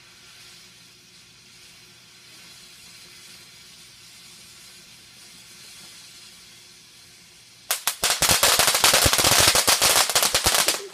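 Ground fountain firework hissing faintly as it sprays sparks. About eight seconds in, it suddenly breaks into loud, rapid crackling pops as it throws out crackling stars.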